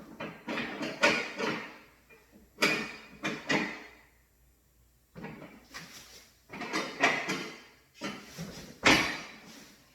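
Packaging and a boxed mirror photo booth being handled and slid during unpacking: a series of short scrapes, rubs and bumps, with a brief lull near the middle and the loudest scrape near the end.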